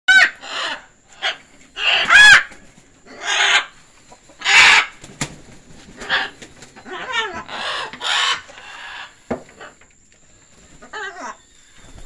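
Young scarlet macaws squawking: a string of about a dozen loud, harsh calls and screeches, some rising and falling in pitch, with a quieter lull a little before the end.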